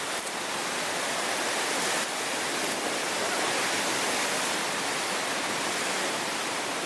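Tsunami floodwater churning and rushing over the shore: a steady, even rush of turbulent water.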